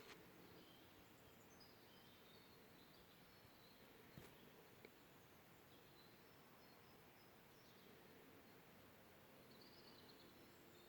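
Near silence in a forest with faint distant birdsong: scattered short high chirps and warbles, and one soft click about four seconds in.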